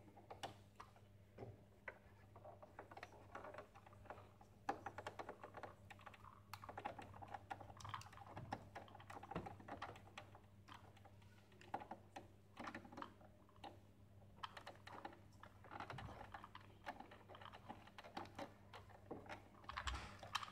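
Faint, irregular small clicks and taps of hard plastic parts being handled: the coffee machine's front control panel and its ribbon-cable connector being fitted back into place.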